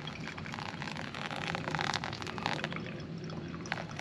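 Hot water poured in a stream from a stainless kettle onto coffee grounds in a paper pour-over filter, trickling and splashing, a little heavier in the middle: the main pour after the bloom.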